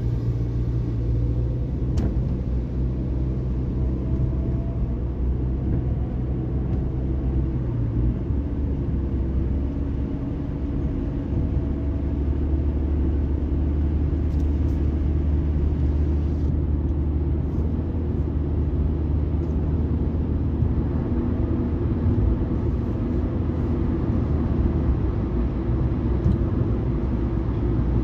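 Road and engine noise inside a moving car cruising on a highway: a steady low rumble, with a faint engine note drifting slowly up and down in pitch.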